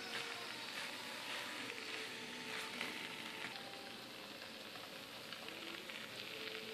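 Stir-fried rice noodles and bean sprouts sizzling and crackling steadily in a hot pan while they are tossed with a wooden spatula, a little quieter in the second half.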